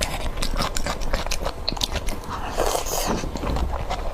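Close-miked eating: crunchy food being bitten and chewed, a rapid run of sharp crunches, with a louder stretch about two and a half seconds in.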